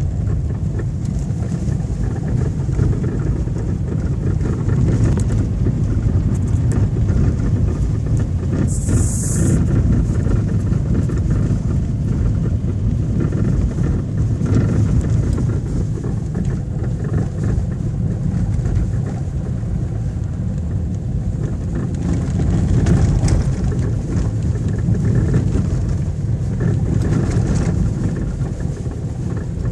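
Car driving with steady road and suspension rumble and irregular knocking from worn anti-roll bar (sway bar) end links. A brief hiss comes about nine seconds in.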